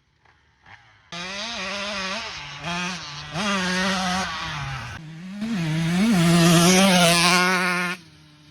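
2022 KTM SX125 two-stroke dirt bike with an FMF Factory Rev header and Pro Circuit R304 shorty silencer, ridden hard past the microphone. The engine comes in about a second in, its note climbing and dropping several times through throttle and gear changes, is loudest near the end, then cuts off suddenly.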